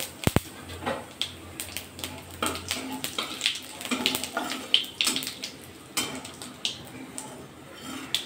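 Whole spices crackling and sputtering in hot oil in a kadai as they are tempered, with a spatula scraping and stirring against the pan and a brief knock just after the start.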